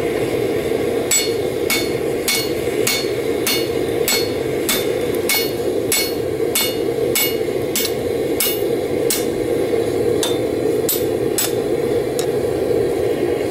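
A one-pound ball-peen hammer forging a hot steel blade blank on a piece of railroad-iron anvil: about nineteen ringing metal-on-metal strikes at a steady pace of a little under two a second, stopping near the end. Underneath, the steady rushing of the running gas forge.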